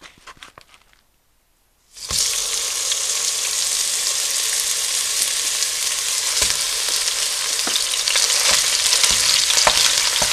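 Ground pork and beef mix sizzling as it hits hot olive oil in a soup pot, browning; the sizzle starts suddenly about two seconds in and holds steady. A wooden spoon stirs and knocks in the pot near the end as the meat is broken up.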